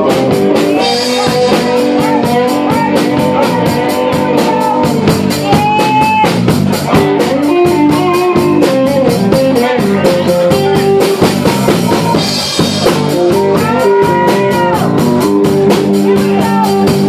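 Live blues band playing an instrumental passage: electric guitar and drum kit under a lead melody that bends in pitch.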